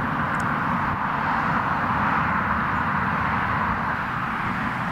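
Ryanair Boeing 737's twin jet engines running steadily as the airliner rolls along the runway: an even jet noise over a low rumble.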